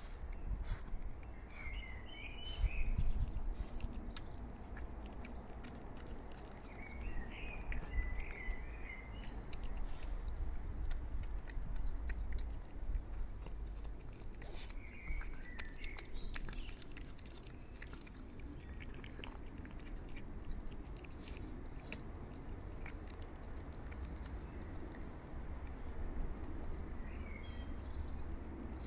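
A cat eating, chewing with many small clicks and smacks close to the microphone. Birds chirp briefly in the background four times.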